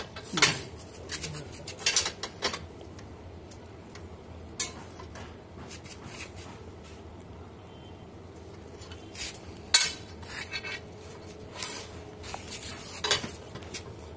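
Scattered metallic clinks and taps of stainless steel railing tubes and fittings being handled during installation, a few sharp strikes standing out near the start, around two seconds in, and near the end.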